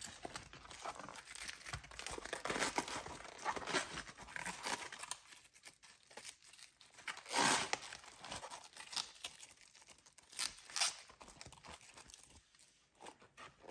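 Crisp leaves of a raw young cabbage being peeled off the head by hand: irregular tearing and crinkling, with two sharper rips about halfway through and a few seconds later.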